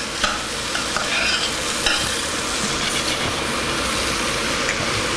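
Green beans sizzling steadily in butter and olive oil in a pan on low heat, with a couple of light clicks from a utensil against the pan.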